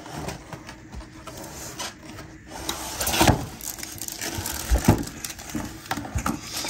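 Cardboard box flaps and a cardboard insert being handled as a plastic-wrapped flash unit is slid out. The sound is rustling and scraping of cardboard and plastic wrap, with a few sharp knocks, the loudest about three seconds in and again near five seconds.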